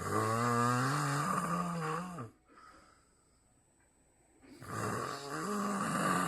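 A man snoring heavily: two long, growling snores that sound like a grizzly bear. Each lasts about two seconds and rises in pitch before dropping away at its end. The second begins about four and a half seconds in.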